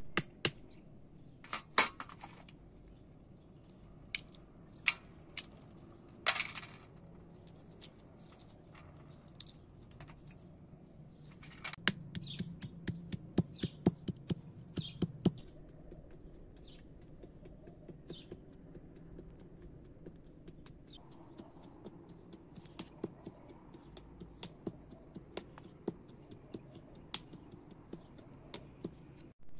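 Pestle knocking and grinding in a small mortar: scattered sharp taps, with a dense run of quick knocks about twelve to fifteen seconds in.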